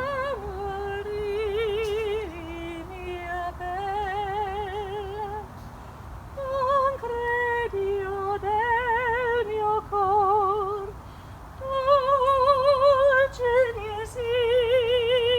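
A woman singing solo, unaccompanied: long held notes with a wide vibrato, in phrases that rise and fall, sung to a tree.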